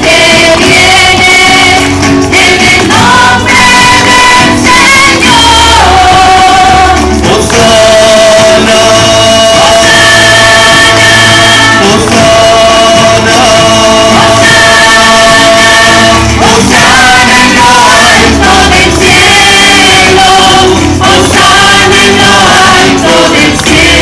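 Parish choir singing a Spanish-language hymn with instrumental accompaniment, voices holding long notes over a steady bass line.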